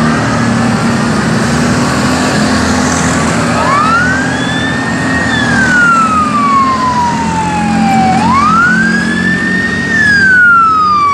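Engines of a convoy of quad bikes running as they pass, then a fire brigade van's siren wailing. The siren rises quickly, holds, then falls slowly in pitch, one cycle about every four and a half seconds, and gets louder near the end as the van approaches.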